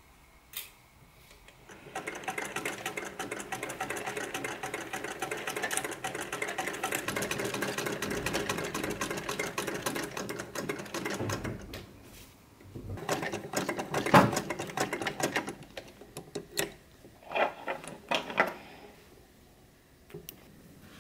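Vintage sewing machine stitching at a steady rapid pace for about ten seconds, then a couple of shorter bursts of stitching. Near the end come several separate sharp snips of scissors cutting the threads.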